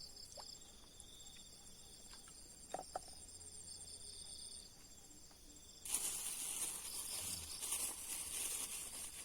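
Insects trilling in steady, pulsing high tones, with a few faint clicks among them. About six seconds in, a louder steady hiss starts abruptly and covers them.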